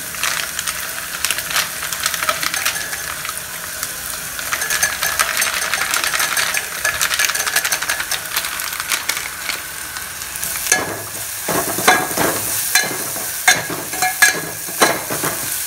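Onion and spice masala frying in hot oil in a metal pot, with a steady crackling sizzle. From about ten seconds in, a metal spoon stirring it knocks and scrapes against the pot several times.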